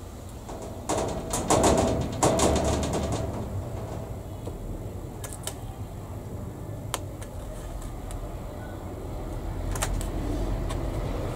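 Small metal hobby tools clicking and tapping on a workbench: a quick flurry of sharp clicks about a second in, then a few single clicks spread out.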